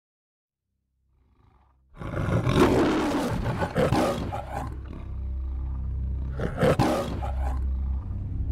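The MGM studio logo's lion roar: a long roar begins about two seconds in, and a second shorter roar follows near seven seconds. A low steady rumble runs underneath.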